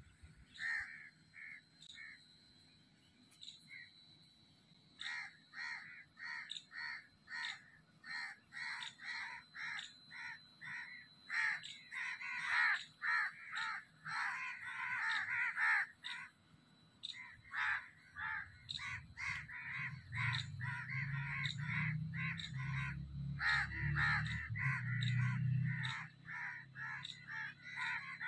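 Crows cawing over and over: a few scattered caws at first, then a steady run of several caws a second from about five seconds in. A low rumble sits underneath for several seconds past the middle.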